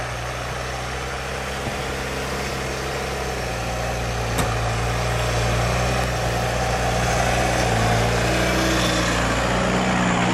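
Vehicle engine running steadily, growing somewhat louder in the second half, with a single sharp click about four and a half seconds in.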